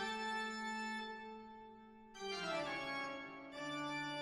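Background organ music: three slow, held chords, changing about two seconds in and again near the end.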